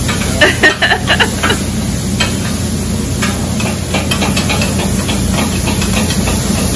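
Sliced steak sizzling on a flat-top griddle while two metal spatulas chop and scrape through it, making rapid, irregular clicks against the steel plate as a Philly cheesesteak's meat is cooked. A steady low hum runs underneath.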